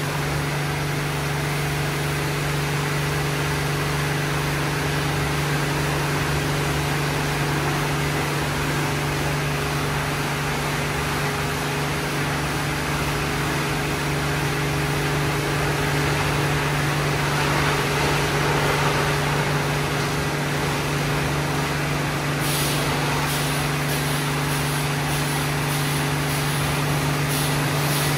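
Christ Genius C160 rollover car wash running through its cycle, with a steady motor hum under a wash of noise. A higher, rapidly pulsing hiss comes in about 22 seconds in.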